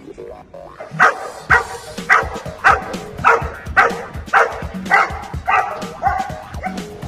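German shepherd puppy barking repeatedly, about two barks a second, starting about a second in, over background music.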